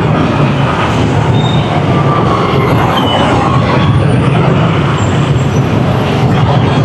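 Steady, loud rush-hour city traffic: many vehicle engines and road rumble.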